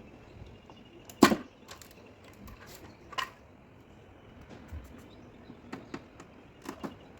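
A few sharp, separate knocks: a loud one about a second in, another about two seconds later, and a few fainter ones near the end.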